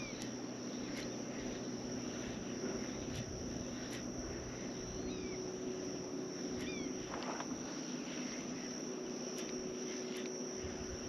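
Outdoor ambience: a steady high insect buzz over a haze of wind and water noise, with a few short falling bird chirps and scattered faint clicks.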